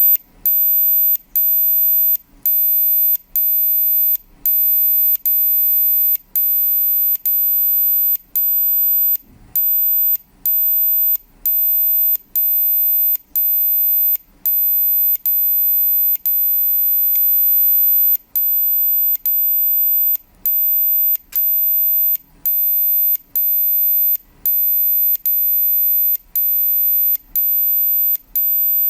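A very high-pitched steady tone keyed off briefly about once a second, with gaps of differing lengths and a longer unbroken stretch partway through. This is a radio-clock time-code signal played through a speaker so that a radio-controlled clock can pick it up and set its time.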